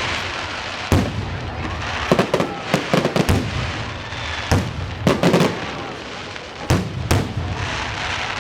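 Fireworks display: aerial shells bursting in an irregular run of sharp bangs, some single and some in quick clusters of two or three.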